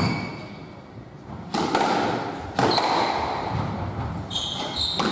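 Squash rally: the rubber ball cracking off rackets and the court walls, two loud hits about a second apart ringing in the enclosed court, then shoes squeaking on the wooden floor with more hits near the end.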